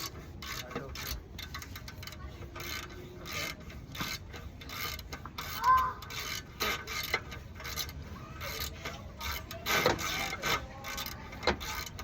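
Hand tools and metal parts being worked on a car: irregular clicks, clinks and scraping, with sharper knocks about six and ten seconds in.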